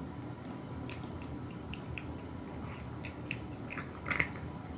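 A cat eating dry kibble from a ceramic bowl: scattered small crunches and clicks as it chews and picks up pieces, with a louder cluster of crunches about four seconds in.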